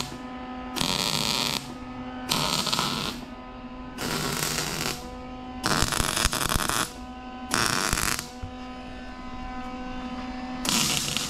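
Wire-feed (MIG) welder running short welds on a metal tube: about six bursts of arc noise, each up to about a second long, with pauses between. A steady hum carries on through the gaps.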